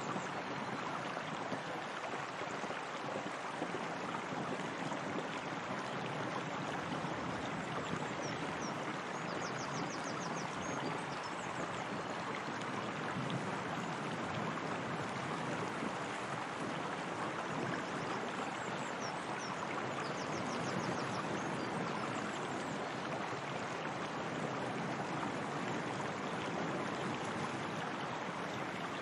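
Steady flowing water, like a stream or small waterfall running over stone. A faint high chirping comes in a few times.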